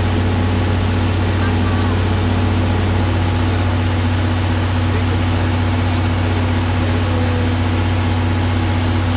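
DE10 diesel-hydraulic locomotive's V12 diesel engine idling steadily with a deep, even hum.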